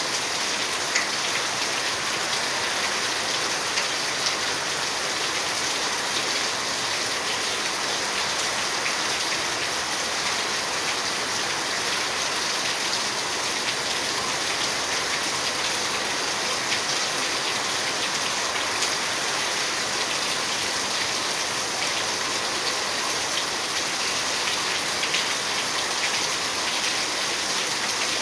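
Steady rain falling, a constant hiss with scattered drops ticking on surfaces.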